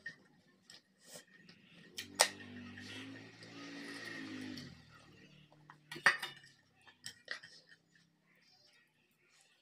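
Fingers mixing and scooping rice on a ceramic plate: light scrapes and clinks against the plate, with two sharper clicks about two and six seconds in. A faint low voice is heard in the background for a few seconds in the middle.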